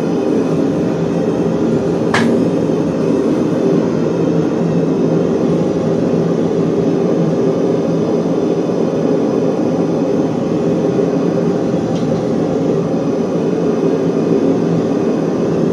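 Steady, loud running noise of workshop machinery, with a sharp click about two seconds in.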